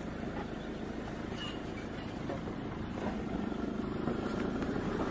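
Steady low rumble of a vehicle engine running, a little louder from about three seconds in.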